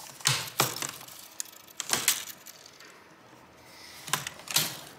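Handling noise from an HP ProBook 450 G8 laptop's screen assembly and plastic housing as a stubborn part is worked loose: about five sharp clicks and knocks, with light scraping between them.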